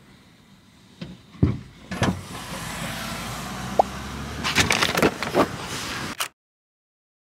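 Camera handling noise: knocks and rustling as the camera is moved around against a bag and crinkly snack packets, over a steady low hum. It cuts off suddenly about six seconds in.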